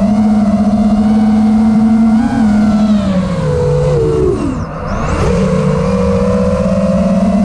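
Freestyle FPV quadcopter's four brushless motors (PyroDrone Hyperlite 2207 2522KV) spinning 5-inch tri-blade props, a steady buzzing whine heard from the onboard camera. About four seconds in the pitch drops sharply and then climbs back as the throttle is chopped and brought up again.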